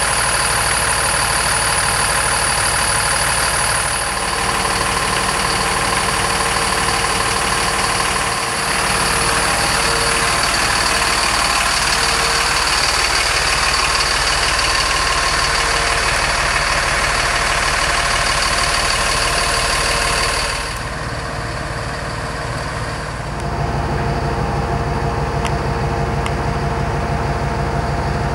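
The Mercedes diesel engine of a 2006 Freightliner M2 box truck idling steadily, with a steady high whine over the engine note. Both drop for a couple of seconds about three-quarters of the way through.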